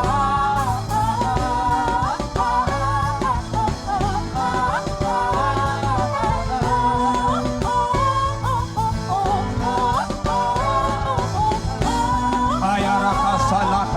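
Worship music: a gliding, wordless sung melody over a steady instrumental backing with sustained low notes.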